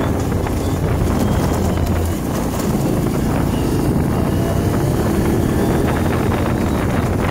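Can-Am off-road vehicle's engine running under way, with wind rushing over the microphone. The engine note dips briefly about two seconds in, then picks up again.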